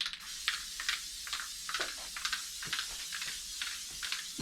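Aerosol can of spray adhesive hissing steadily as it is sprayed in circles to lay down cobweb strands, sputtering about two or three times a second.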